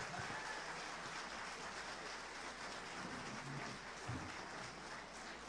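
Audience applauding after a song, slowly dying away.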